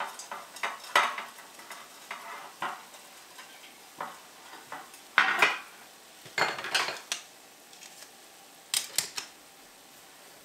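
Kitchen handling sounds: short clinks, taps and scrapes of a pastry brush and utensils against a metal muffin-top tin and pans. They come a few at a time with quiet gaps, the loudest clusters a little past halfway and near the end.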